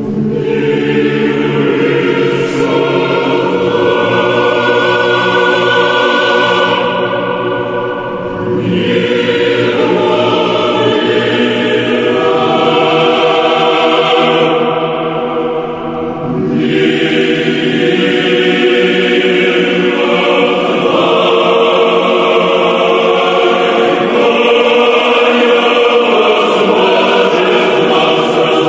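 Choir singing slow Orthodox church chant in long held phrases, the voices pausing briefly twice, about a quarter and about halfway through.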